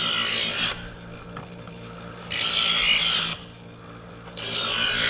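Chef's Choice electric knife sharpener's motor humming steadily while a dull knife blade is drawn through its coarse grinding stage. Each pull gives a harsh grinding rasp about a second long, roughly every two seconds, three times in all.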